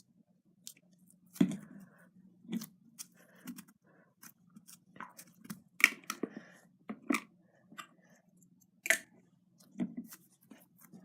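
Slime being squished and stretched by hand, making irregular sticky pops and clicks, the loudest about six and nine seconds in.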